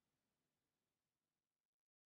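Near silence: a very faint hiss that fades out into digital silence near the end.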